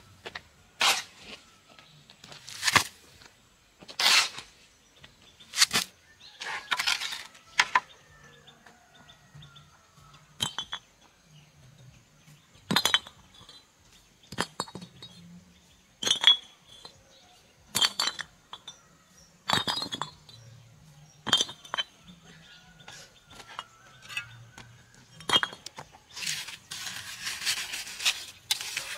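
Hand-tool work: a series of sharp strikes about one to two seconds apart, some with a metallic clink. Near the end a steady rasping, rubbing noise starts.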